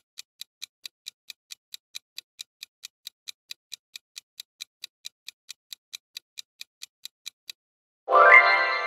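Countdown-timer sound effect: clock ticking, about four ticks a second. The ticks stop near the end, and a bright chime rings out and fades, signalling that time is up.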